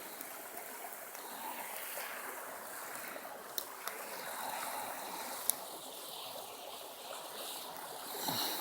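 Steady watery hiss, with a couple of faint clicks about three and a half and five and a half seconds in.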